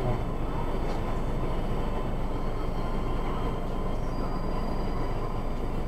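Rotating brushes of an automatic car wash scrubbing over a car, with water, heard from inside the cabin as a steady low noise.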